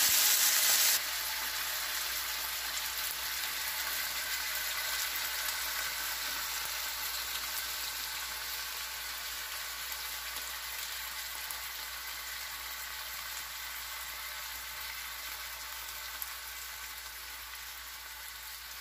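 New York strip loin steaks sizzling in oil in a frying pan, a steady frying sizzle, louder for about the first second and then slowly fading; the steaks are finished cooking.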